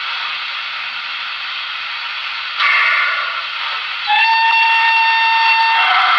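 Steam sounds from the DCC sound decoder of a Broadway Limited Imports HO-scale Pennsylvania Railroad 2-8-0 model, played through its small onboard speaker. A steady hiss runs under everything, with a louder burst of hiss about two and a half seconds in. From about four seconds in comes one long steam-whistle blast, which drops lower just at the end.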